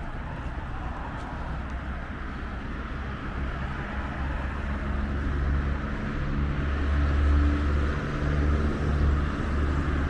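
Road traffic passing: a steady hiss of tyres with engine hum, growing louder from about halfway through as a vehicle with a low engine drone comes by.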